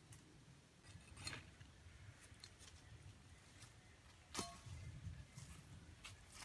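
Quiet work sounds: dry leaf litter rustling under bare feet and a few sharp clicks of sticks being handled, the loudest about four and a half seconds in.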